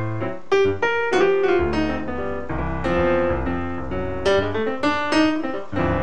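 Piano music: a steady run of struck notes and chords.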